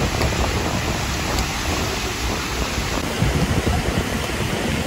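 Steady beach ambience: the wash of breaking surf mixed with wind rumbling on the microphone.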